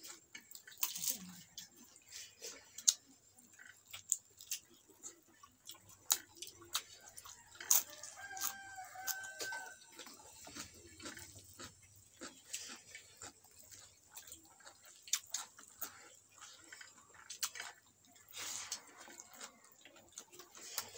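Close-up eating sounds: chewing and lip-smacking as rice is eaten by hand, heard as many small sharp clicks. A rooster crows once in the background about eight seconds in.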